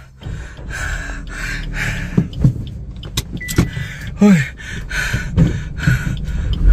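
Car engine running as the car drives slowly over a rough, rutted dirt track, heard from inside the cabin, with repeated knocks and rattles throughout.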